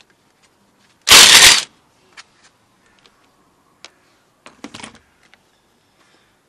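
A cordless impact wrench hammers in one short burst of about half a second, undoing a copper-greased bolt from the front hub's drive flange on a Classic Mini. A few light clicks and a brief clatter follow, nearer the end.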